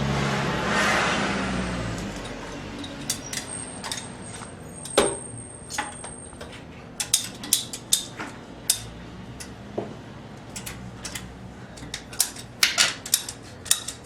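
Scattered clicks and knocks of PVC pipe and plumbing fittings being handled while a cut is measured, coming more often in the second half. A rushing hiss fades out over the first couple of seconds.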